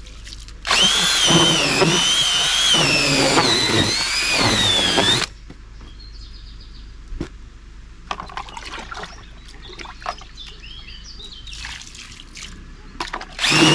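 Cordless drill with a whisk mixer stirring fishing groundbait and water in a bowl, the motor whining with its pitch wavering as the mix loads it; it runs about four seconds, stops abruptly, and starts again near the end. In between, quieter sounds of the wet mix being worked by hand and water being poured.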